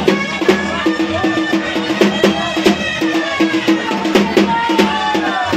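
Loud dance music with a fast, steady drum beat, played over loudspeakers.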